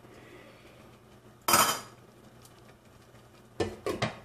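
Metal spoon clanking once against a stainless-steel pot, ringing briefly, then two or three quick clinks as a glass lid is set on the pot near the end.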